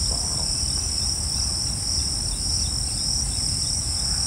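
A steady chorus of insects chirring shrilly at two high pitches, with a faint pulsing, over a low steady rumble.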